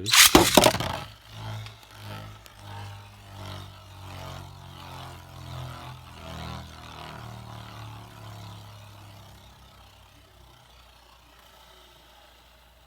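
Custom 3D-printed Beyblade Burst top launched into a plastic stadium: a loud rip from the launcher, then the top spinning and scraping on its Spiral Dash driver. The hum swells and fades about once a second as it circles the bowl, weakening until it stops about ten seconds in.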